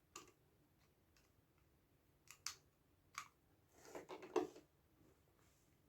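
Sharp clicks and small knocks of plastic parts being handled as a wireless speaker is taken apart. A few single clicks come first, then a louder, rattling cluster about four seconds in.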